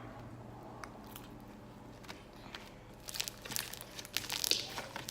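Homemade slime being squeezed and worked by hand, giving a few faint clicks and then a dense run of crackling clicks and pops from about three seconds in.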